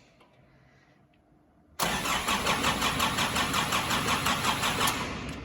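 New Hitachi starter motor cranking the 2005 Nissan Navara D22's diesel engine for about three seconds, starting suddenly about two seconds in and stopping near the end, with an even pulse as the engine turns over. The engine does not fire because its injector pump is disconnected.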